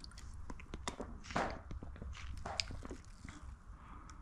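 Footsteps on a concrete floor, with light scattered clicks and rustling.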